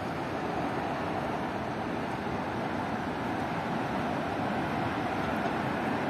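Steady city street noise: a continuous traffic rumble and hiss with no distinct events.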